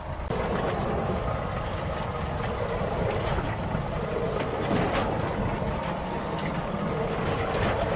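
Steady drone of a fishing boat's machinery running, with a faint hum, while the boat sits at anchor for squid jigging.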